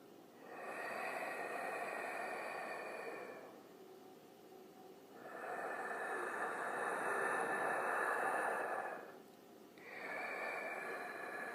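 Creepy breathing sound effect: slow, drawn-out breaths, each lasting three to four seconds with a short pause between. Two full breaths, then a third begins near the end.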